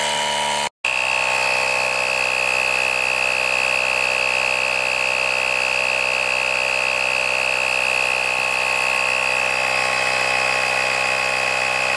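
Auxito AJ01 jump starter's built-in air compressor running steadily with a high whine, pumping up a flat car tire that is nearly at its 36 psi setting. The sound drops out for an instant less than a second in.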